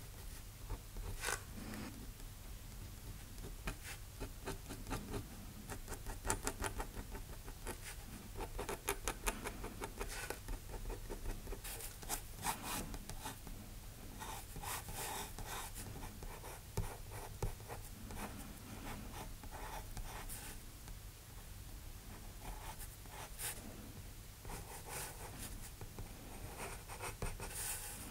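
Drawing tools scratching on paper in irregular bursts of quick short strokes: first a steel G-pen nib inking, then a soft Mitsubishi Hi-Uni 4B pencil sketching.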